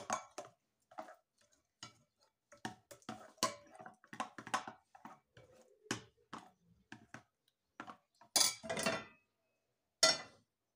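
A metal spoon clinking and scraping against a glass bowl while stirring pancake batter, in quick irregular taps. Near the end come two louder clatters as the frying pan is handled on the gas stove.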